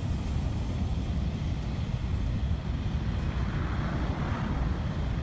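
A long freight train of loaded coal hopper wagons rolling past, a steady low rumble of wheels on the rails.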